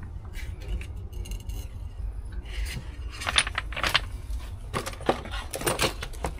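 Small metal parts clinking and jangling together as metal fittings are handled, in a few clusters during the second half, over a steady low rumble.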